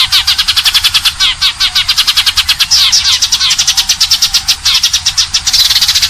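Sparrows chirping in a fast, unbroken chatter of short calls, about eight to ten a second: a sparrow lure recording of the kind played to draw birds to traps.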